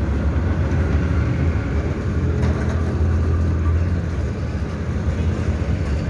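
Steady low rumble of road vehicles, a running engine and traffic noise, with no clear change.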